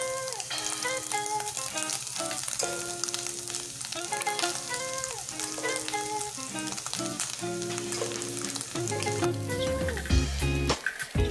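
Oil sizzling and frying in an electric pan under a scramble of egg, onion and garlic, with cooked rice added on top, over background music with a changing melody. A few dull thumps come near the end.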